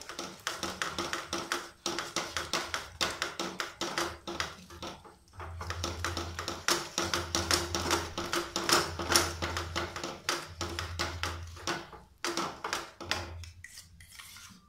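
Wooden spatula stirring and scraping curd into a thick masala in a non-stick frying pan: a quick run of light scrapes and taps, several a second, easing off near the end.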